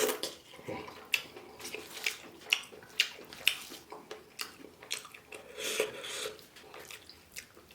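A person eating close to the microphone: irregular wet chewing and mouth clicks, roughly one or two sharp smacks a second.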